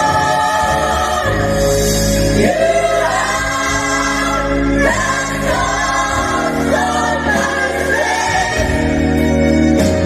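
Gospel choir singing together, holding long sustained notes whose pitch swells and shifts as the voices move between chords, over steady low tones.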